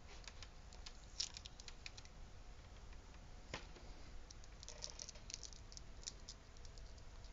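Faint clicks and crinkles of a clear plastic blister tray from a figure's packaging being handled, with scattered ticks early on, a single sharp click about three and a half seconds in, and a quick flurry of small clicks around five seconds in.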